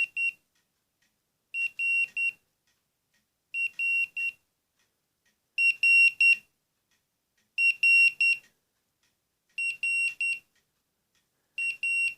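Vodafone Zap pager's incoming-message alert: a high-pitched triple beep repeating every two seconds. It gets louder about halfway through as the alert escalates.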